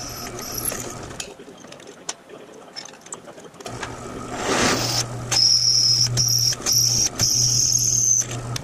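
Drill press running, its bit cutting through an aluminum plate with a steady motor hum and a high whine from the cut. The hum and whine drop away about a second in, then come back louder from about four to five seconds.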